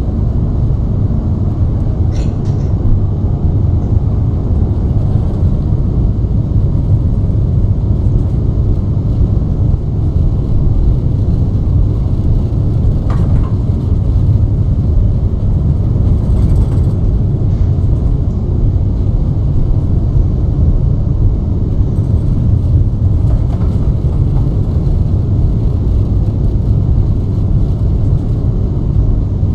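Boeing 737 MAX 7 jet airliner heard as a loud, steady, low rumble, with a couple of faint brief ticks.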